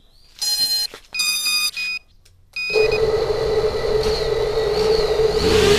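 Three short electronic beeps, then about two and a half seconds in the FPV racing quadcopter's brushless motors start and run steadily at idle, armed with the quad still sitting on the ground before takeoff.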